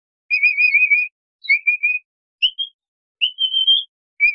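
Capybara giving high whistled chirps in short bursts, about five in all. Some bursts are wavering trills with faint clicks and some are rising whistles, separated by brief gaps.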